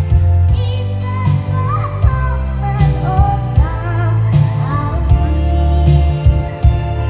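A young girl singing a melody over a backing track with a steady beat and heavy bass; her voice is a little hoarse from a cough and cold.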